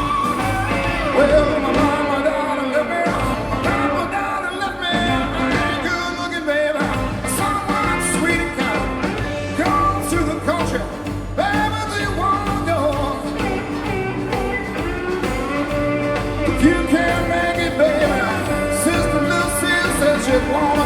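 Live Southern rock band playing: drums and bass under a melodic lead line that glides in pitch.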